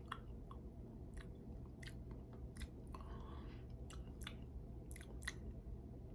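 Quiet, irregular lip smacks and wet mouth clicks from a person tasting a sip of soda in his mouth, over a low steady hum.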